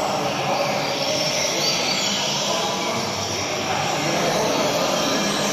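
Double-collared seedeater (coleiro) singing, its high phrases faint under a steady, dense noise that fills the recording.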